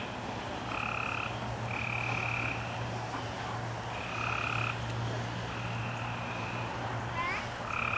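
Frogs calling: buzzy calls of under a second each, coming about every second, some at two pitches at once, over a low steady hum.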